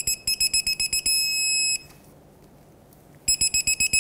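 Electronic torque wrench beeping as a bolt is tightened: a run of quick beeps as the torque builds, then one steady tone of under a second that marks the set torque of 113 ft-lb being reached. The same pattern starts again about three seconds in, for the second bolt.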